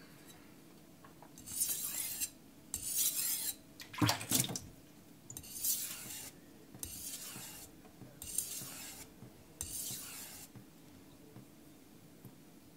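Carbon-steel (aogami) kitchen knife blade pushed and pulled across a soaked King 1000 whetstone: a series of separate wet, gritty scraping strokes with short pauses between them. This is a short set of a few strokes per side, counted down to refine the edge.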